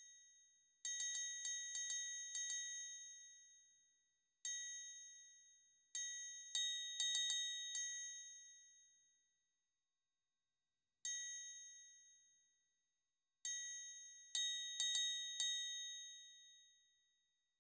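Cowbell part played back from a notation score with a sampled cowbell: single strikes and quick runs of bright metallic hits, each ringing out for a second or two, separated by rests of complete silence.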